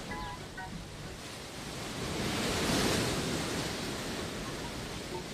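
Sea surf: a wave washes in, swelling to a peak about three seconds in, then easing off.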